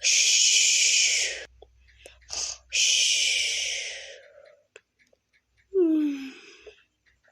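A person's breathy hissing exhales, two long ones, the second fading out, then near the end a short vocal sound that falls in pitch.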